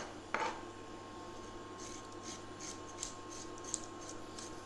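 A spoon scraping the seeds out of a halved cucumber: two light knocks at the start, then a run of soft, quick scraping strokes.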